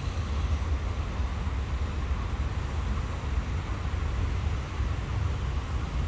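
Steady low rumble and hiss of city traffic, with no distinct events.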